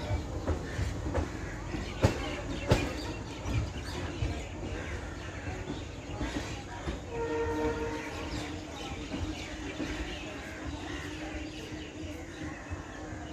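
Passenger train coaches rolling away, wheels clacking over rail joints and the rumble fading as the train recedes. A train horn sounds distantly about seven seconds in.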